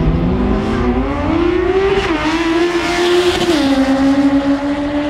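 Two sport motorcycles accelerating hard in a quarter-mile drag race, engine pitch climbing and dropping at upshifts about two and three and a half seconds in, then holding steady as they pull away.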